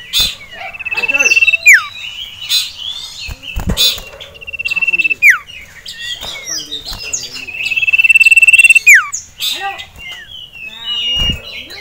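Common iora (cipoh) singing agitatedly, as caged birds do at the sight of rival ioras: three long, steady, loud whistles, each ending in a sharp downward slur, among shorter chirps. A few sharp knocks fall in between.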